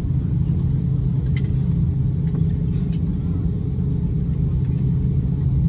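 Steady low rumble of an Airbus A350-900's Rolls-Royce Trent XWB engines idling on the ground, heard from inside the cabin.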